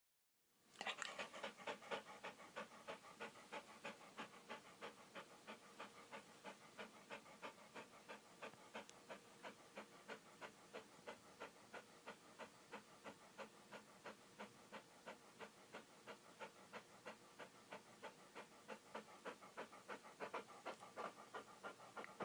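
Dog panting quickly and steadily, about three to four quick breaths a second, after a brief silence at the very start.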